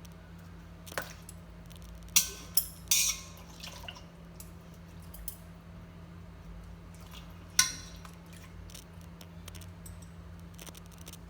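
Cooked pig ears being lifted from the pot into a basin of cold water: a handful of sharp clinks of a utensil against metal pot and basin, with water dripping. The two loudest clinks come about two seconds in and past the middle.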